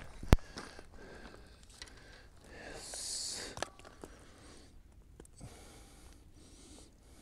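A sharp click just after the start, then a short breathy hiss about three seconds in and another small click, over faint rustling as a fish is worked free of a mesh landing net.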